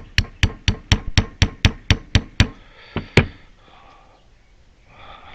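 Hammer tapping a small sharpened file to drive out the wiper seal of a Case 580 backhoe outrigger hydraulic ram: a quick, even run of sharp taps, about four a second, for over two seconds, then two more taps a moment later.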